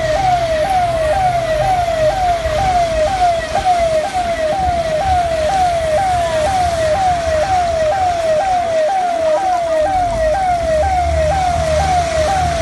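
Electronic siren wailing in a fast repeating cycle: each note falls in pitch and snaps back up, about twice a second. A low vehicle rumble runs underneath, dropping away for a moment past the middle and coming back stronger near the end.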